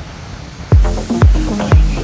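Electronic dance music: after a quiet break, a heavy kick drum comes in about three-quarters of a second in and beats about twice a second, with synth notes over it.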